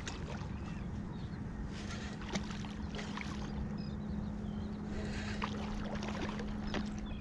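Wind and water noise on an action camera while a hooked fish swirls and splashes at the surface against a bent rod, with a few short splashy bursts. A steady low hum comes in about two seconds in and holds.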